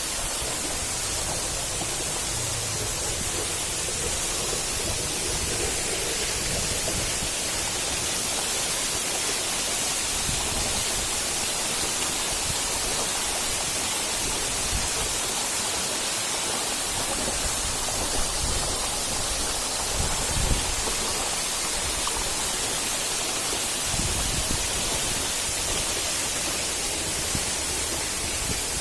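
Waterfall heard up close: a steady, even rush of falling water.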